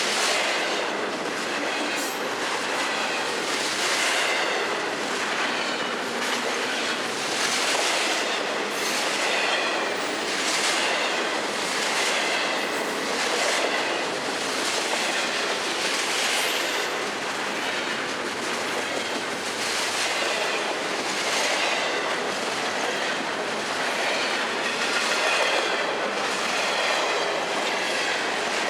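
Freight cars of a long Florida East Coast Railway train rolling past: a steady rumble and rattle of steel wheels on rail, with a clatter that recurs about every two seconds.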